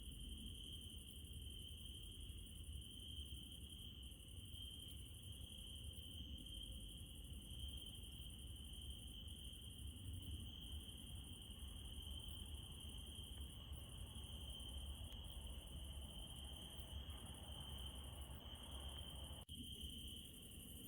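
Crickets trilling steadily in a night chorus, with a higher insect shrill above that breaks off briefly every second or two, over a faint low rumble. Everything cuts out for a moment near the end.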